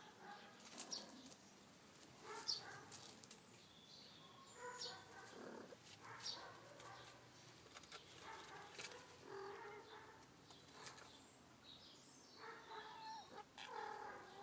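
Faint outdoor sounds: soft, short animal calls every second or two, with brief high chirps and light rustling.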